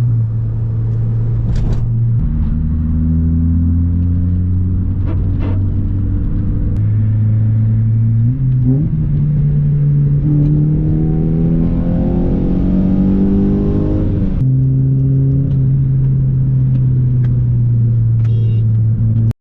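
Honda Civic Si's K24 four-cylinder engine running as the car is driven: its pitch holds steady, climbs under acceleration from about eight seconds in, falls suddenly about fourteen seconds in, then holds steady again.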